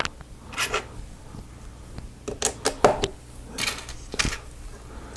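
Small plastic Lego pieces clicking, clattering and rustling as they are handled and fitted together, in several short clusters of clicks.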